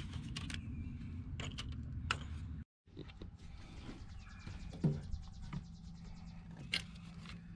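Hand tools working on a tractor's oil pressure sending unit: a socket and metal fittings clicking, creaking and knocking against the engine block. A steady low hum sits under the first half, which cuts off suddenly about two and a half seconds in. After that comes a fast, even run of light clicks with a few sharper knocks.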